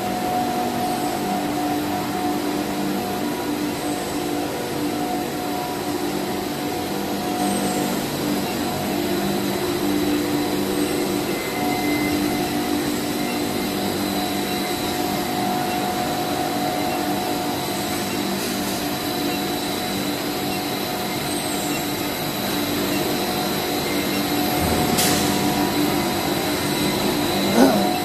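Steady hum and whir of a running plastic pipe extrusion line, with motors, extruder and cooling tank all running and several constant tones. A single sharp click sounds near the end.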